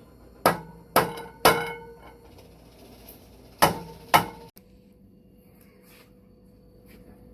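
Five sharp hammer blows: three in quick succession, then a pause, then two more. Each has a brief metallic ring, which fits metal handrail pipes being tapped down into holes drilled in a wooden 2x4.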